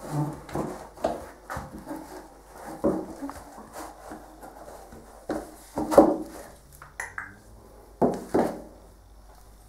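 Irregular knocks, clicks and rubbing from patent heeled shoes shifting on a tiled floor and the camera being handled close to the body, with the loudest knocks about six seconds and eight seconds in.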